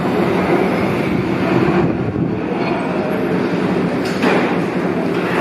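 Berlin U-Bahn train running into an underground station and slowing to a stop, a steady rumble of wheels and motors, with a short knock about four seconds in.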